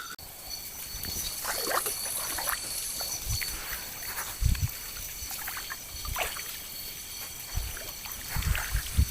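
Water sloshing and splashing around a bamboo raft on a river, with scattered dull knocks, over a steady high trill of night insects.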